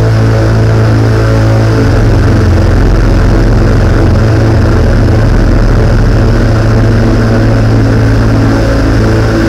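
Loud live electronic music from synthesizers: a heavy, steady bass drone with sustained tones layered above it. The lowest bass deepens about two seconds in.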